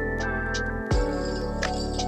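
Electronic background music with a steady beat, synth bass and a held melody line.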